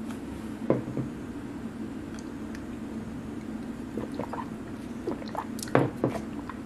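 Steady low room hum with scattered soft clicks and small handling noises, the strongest about a second in and again near the end.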